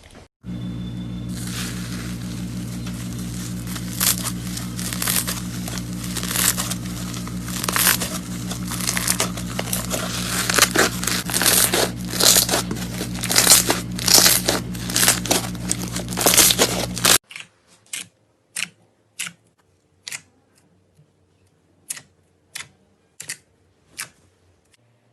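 Slime being squeezed and worked, with dense crackling and popping over a steady low hum. About 17 seconds in it cuts to quieter, separate sticky pops every half second or so.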